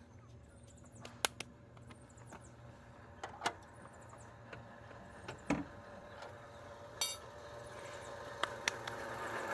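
A car jack being worked to raise a car: scattered metallic clicks and knocks, one a short rattling series, over a faint steady hum.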